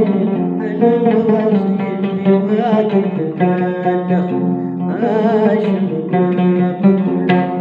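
Long-necked plucked lute played solo: a run of plucked notes changing about every half second over a steady low drone note, twice broken by a short wavering, warbling phrase.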